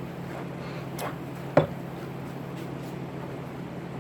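Two short knocks over a steady low hum: a faint one about a second in, then a sharp, louder one about half a second later.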